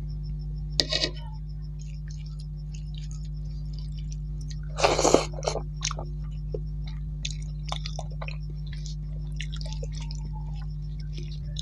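Close-miked hand-eating sounds: fingers mixing rice on a steel plate, with small clicks and soft chewing, and two louder noisy bursts about one and five seconds in. A steady low hum and a faint high pulsing tone run underneath.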